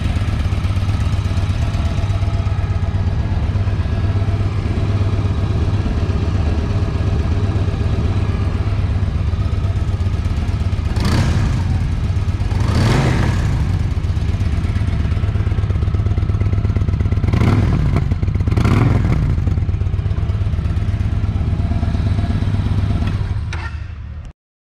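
2013 Victory Boardwalk's air/oil-cooled V-twin idling steadily, the throttle blipped for four short revs in two pairs, then the engine stops near the end.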